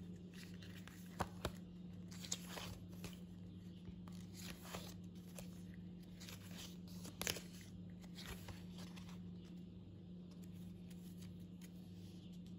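Pages of a small paper booklet being handled and turned: soft rustles with a few sharp paper snaps, over a steady low hum.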